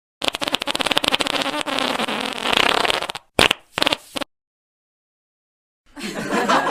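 A long rattling fart noise lasting about three seconds, followed by two short ones. Near the end, people start chuckling.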